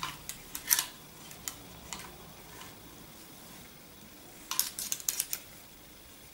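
Rustling, crinkling and light clicks of clothes and shopping being rummaged through by hand, in two short bursts: one near the start and another about four and a half seconds in.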